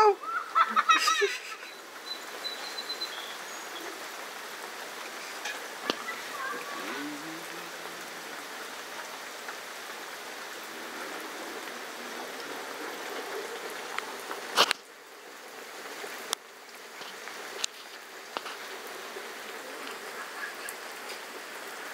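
Steady rain falling, an even hiss throughout. A voice briefly at the start, and one sharp knock about fifteen seconds in.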